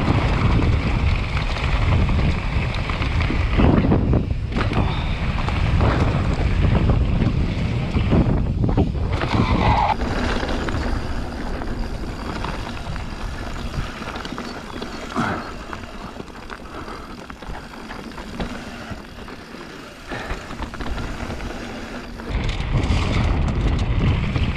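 Radon Jab enduro mountain bike descending a dirt singletrack: wind rushing over the helmet- or bar-mounted camera microphone, with tyre rumble on dirt and leaves and knocks from the bike over bumps. The sound eases off through the middle stretch and comes back loud near the end as speed picks up again.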